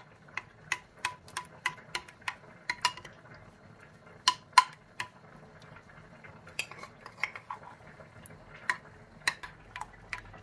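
A spoon clinking against a bowl while stirring yogurt with crushed garlic: quick, regular light taps, about three a second, that thin out after a few seconds, with two louder clinks about four and a half seconds in.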